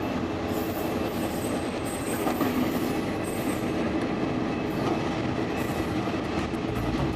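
KiwiRail DFB-class diesel-electric locomotive 7160 hauling a passenger train into a station platform: engine running over steady wheel-on-rail noise, with faint high-pitched squeals on and off.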